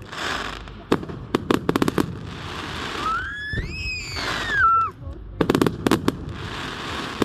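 Fireworks going off: volleys of rapid sharp crackling bangs alternate with hissing. About three seconds in, a whistling firework rises and then falls in pitch for nearly two seconds before cutting off.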